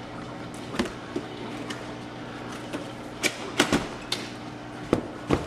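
Cardboard box being handled and its lid lifted open: a string of sharp knocks and scrapes of cardboard, several in quick succession from about three seconds in, over a steady low hum.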